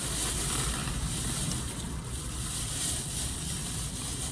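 Steady background noise: a low rumble with a hiss, with no distinct sound events.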